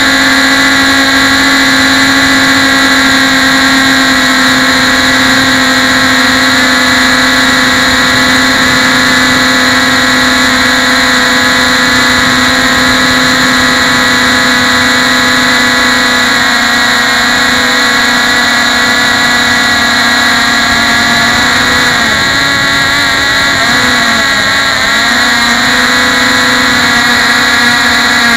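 Three small Cox RR-1 glow engines on a model sailplane running together at high revs, set rich. They give a loud, steady, high buzz with several close pitches beating against each other. About 22 seconds in, one engine's pitch dips and wavers briefly for a few seconds.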